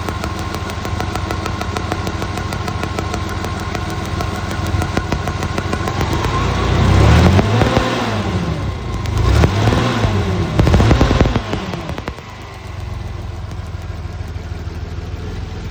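Hyster forklift's Vortec V6 engine running with a misfire caused by a spark plug wire shorting, idling unevenly, then revved up and down three times around the middle before settling back to idle.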